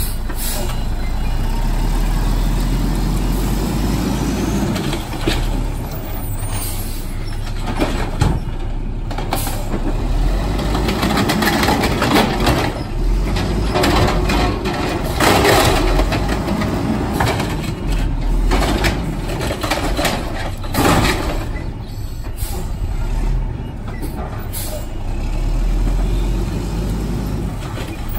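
Automated side-loader garbage truck running at the curb while its hydraulic arm lifts and empties a cart, with repeated bangs and clatter, and hisses of air brakes. The truck then moves on down the street.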